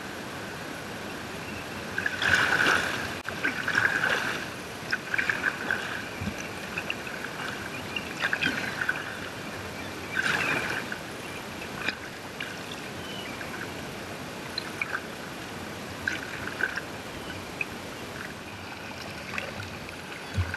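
Choppy seawater sloshing and gurgling against the hull of a skin-on-frame Greenland kayak, with irregular louder splashes from paddle strokes and waves, the biggest a couple of seconds in and around ten seconds in.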